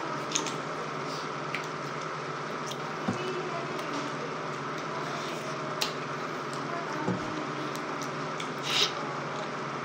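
Wet, squelchy eating sounds of ripe mango being bitten and chewed by hand: a handful of short smacks and slurps over a steady background hum, the loudest one near the end.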